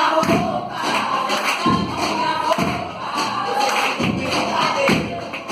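Music with a steady low beat, a thump about every 0.8 seconds, under a wavering melody.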